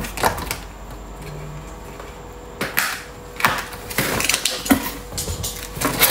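Cardboard box being opened by hand: flaps scraping and knocking in a few short, sudden strokes, then denser rustling of the paper inserts from about two-thirds of the way in.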